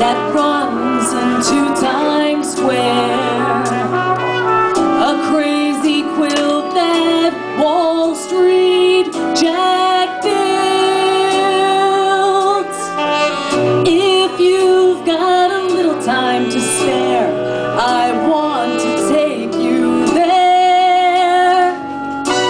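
Music: a woman singing into a microphone over accompaniment with brass instruments.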